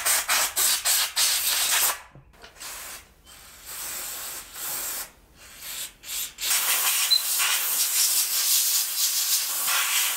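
Canned compressed air hissing through a Puch ZA50 engine case's ports to blow out metal shavings from port chamfering: several short blasts, a quieter stretch, then one long steady blast from about six and a half seconds in.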